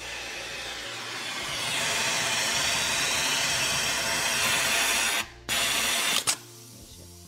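Yamato industrial sewing machine with a left-side trimming knife running at speed, stitching a knit hem while the knife cuts off the excess fabric. It runs in one long burst, stops briefly about five seconds in, runs again for under a second, and stops with a click.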